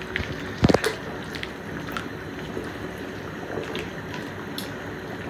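A steel ladle knocks sharply against a large steel wok of chicken being braised in curry, with a few lighter clinks, about a second in. After that the pot simmers over a gas burner with a steady hiss.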